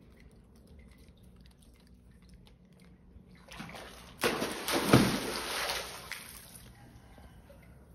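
Water splashing and sloshing as a macaque thrashes and swims in a pool. It starts about three and a half seconds in, is loudest over the next second and a half, then dies away.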